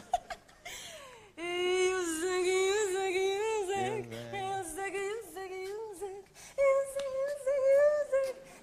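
A woman singing long held notes with a wavering vibrato: a lower note for several seconds, then a higher note held near the end.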